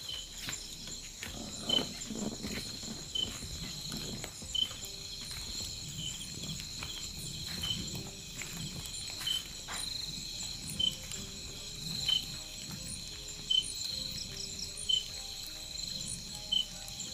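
Night insects, crickets among them, chirring steadily in a high continuous drone, with a short high-pitched call repeating about every second and a half. Some brief rustling in the first few seconds.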